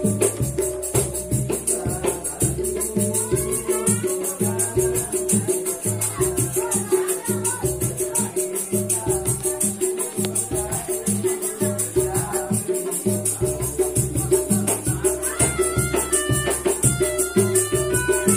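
Street musicians playing: a melodica sounds a held tone and, in the last few seconds, a stepped melody, over fast, steady hand percussion with a rattling jingle.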